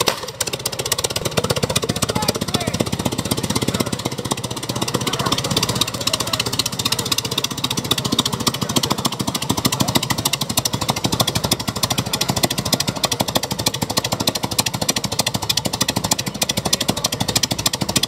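The Fiat S76's 28.4-litre four-cylinder engine running at low speed, its open exhaust sounding as a rapid, even hammering of firing pulses.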